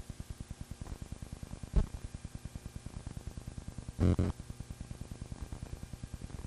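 Steady, even mechanical clicking, about seven or eight clicks a second, typical of a film projector running a silent home movie. A sharp thump comes about two seconds in, and a short, louder buzz comes about four seconds in.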